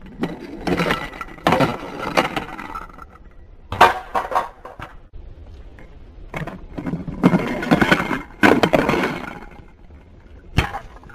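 Thomas the Tank Engine toy train rolling and clattering on a plastic stunt ramp in several loud bursts of rattling and knocking, with a single sharp click near the end.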